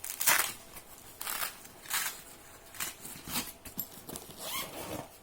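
Packaging being handled during unboxing: a series of short rustles and scrapes, about five in all, the loudest about a quarter second in.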